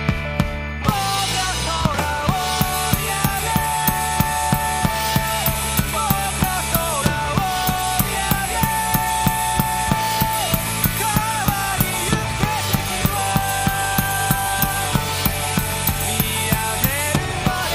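Acoustic drum kit played live along with a Japanese rock song with sung vocals: bass drum, snare and cymbals keep a steady driving beat, and the full band comes in about a second in.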